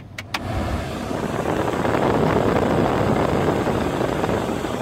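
Ford F-150 cabin blower fan turned up with a couple of clicks of the speed knob, then air rushing from the dash vents. The rush builds over about two seconds, holds steady and eases off near the end.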